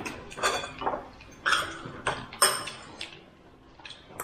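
A person eating: a series of short, irregular crunching and smacking noises while chewing food.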